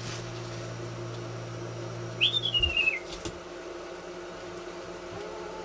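A single short whistle about two seconds in, jumping up in pitch and then sliding down. A steady low hum cuts off just after it.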